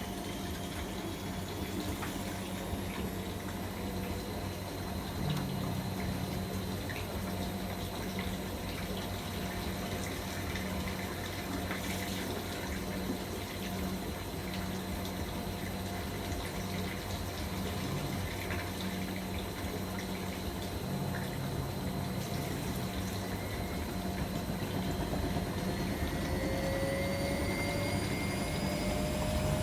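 AEG Öko-Lavamat 73749 Exclusiv washing machine mid-cycle in a boil wash: water rushing through the machine over a steady electric hum from a pump or valve. A whine rises in pitch over the last few seconds.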